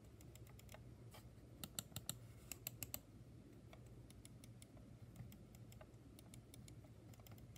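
Faint, soft clicks of a wireless mouse's buttons being pressed over and over, its microswitches modified to make it quiet; a quicker run of slightly louder clicks comes between about one and a half and three seconds in.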